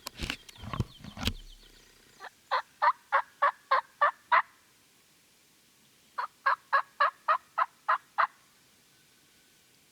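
Turkey yelping: two runs of about eight or nine evenly spaced yelps, roughly four a second, with a pause between them. A few sharp knocks come in the first second.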